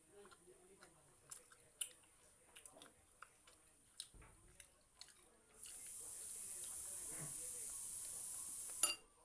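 Close-up chewing and biting of food, with small crunches and clicks. From a little past halfway, a steady high hiss runs for about three seconds and stops with a sharp click.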